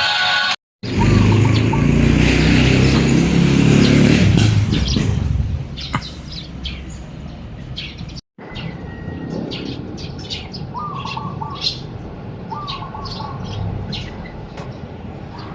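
Birds chirping in quick short calls. A loud low rumble fills the first few seconds, and the chirps continue over a quieter background after it.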